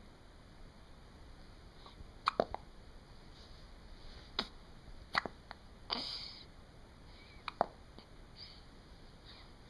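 Repeated short, sharp hiccups, about six of them at uneven intervals of a second or two, starting about two seconds in.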